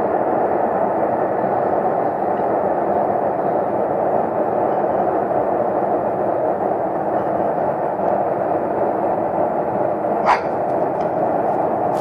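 A really loud, steady, unpitched droning noise of unknown source, one of the mystery sky noises people report and record. One short sharp sound cuts through about ten seconds in.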